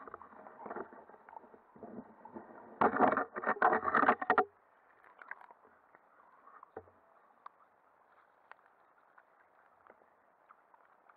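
Muffled underwater water movement picked up by a camera in a waterproof housing fixed to a landing net as the net is moved: a faint swishing hiss, with a loud run of sloshing and knocks from about three to four and a half seconds in.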